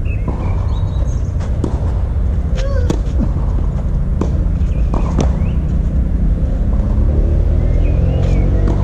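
Tennis rally: several sharp knocks of racket on ball and ball on clay court, about a second apart, over a loud, steady low rumble. Birds chirp now and then, and near the end a motor rises in pitch.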